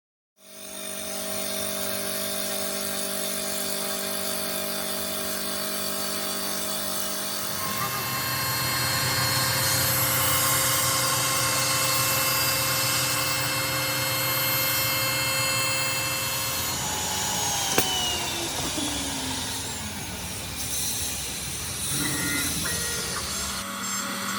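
CNC wood turning lathe running, a steady machine whine made of several held tones. About a third of the way in it grows louder and rougher as the tool cuts the wood. Past the middle comes one sharp click, and the whine falls in pitch.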